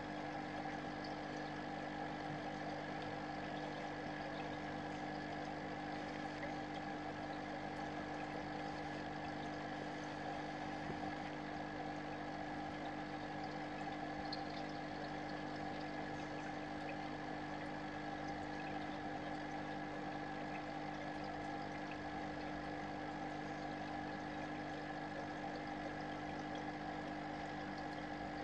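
Small aquarium pump running with a steady, unchanging hum over a constant wash of moving water in the tank.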